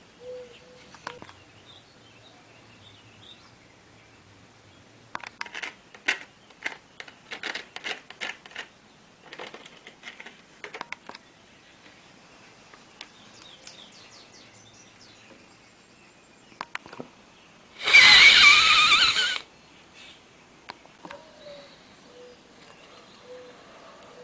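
Paper crinkling and rustling in the hands, with a run of sharp crackles lasting several seconds. Later a single loud, harsh noise lasts about a second and a half.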